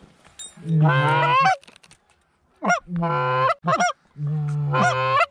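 Hand-blown goose call sounding a run of drawn-out honks, each low note breaking sharply up into a higher one, in three or four long calls with short pauses, imitating Canada geese to bring a flock in.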